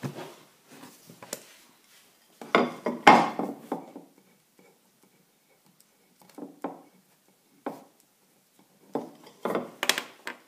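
Intermittent clatters, knocks and rubbing of objects being handled, with the loudest cluster about two and a half seconds in and another near the end.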